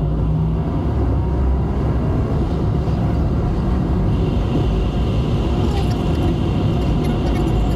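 Car driving, heard from inside the cabin: a steady rumble of engine and tyre noise. A faint, steady high whine joins about halfway through.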